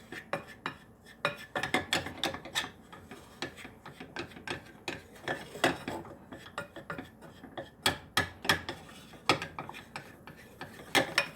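A utensil stirring and scraping a thick flour-and-butter roux around a pan, with irregular scrapes and light knocks against the pan.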